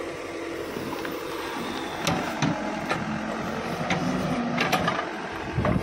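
Escorts Digmax II backhoe loader's diesel engine running, with a clear engine note from about two seconds in and a scatter of sharp knocks and clanks.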